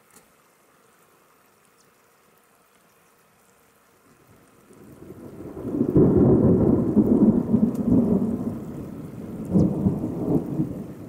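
Thunder from a thunderstorm rolling in: a low rumble that builds up from silence a little before halfway, is loudest just after halfway, swells again near the end, then begins to fade.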